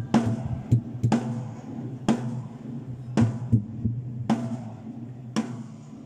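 Acoustic drum kit played in a slow, steady groove: a strong hit about once a second with lighter strokes between, over a steady low tone.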